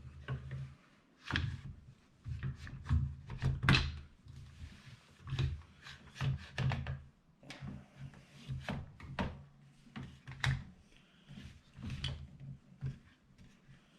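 Irregular plastic clicks and knocks of a Mag Pump 9mm magazine loader and a Sig Sauer P250 magazine being handled, as the magazine is fitted into the loader.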